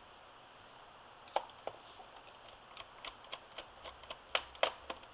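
A run of small, sharp, irregular clicks from a screwdriver working screws out of a Sony Vaio laptop's plastic bottom case. They start about a second and a half in, and the two loudest come near the end.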